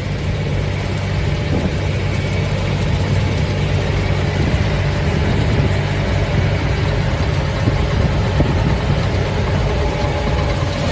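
Tractor engine running steadily, its sound strongest at the low end.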